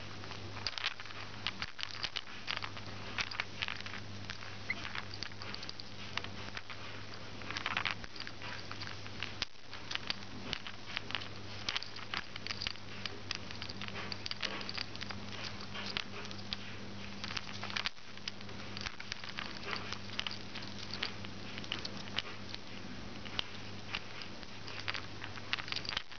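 Rainbow lorikeet playing with small hard plastic toy capsules, its beak and claws making quick, irregular clicks and taps against the plastic. A steady low hum sits underneath.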